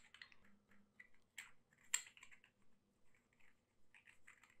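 Faint, scattered clicks and light scraping of a Convoy L21B's aluminium tube and threaded parts being handled and screwed together.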